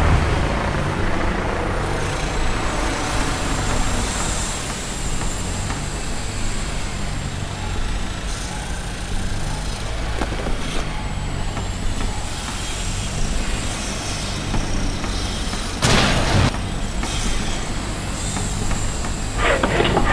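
A heavy diesel engine runs steadily, loudest in the first second. About 16 s in there is a sudden half-second burst of noise, and near the end a handsaw starts cutting through a timber post with quick strokes.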